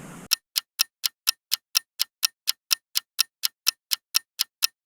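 Clock ticking sound effect: sharp, evenly spaced ticks, about four a second, over dead silence, marking time passing while waiting for a bite.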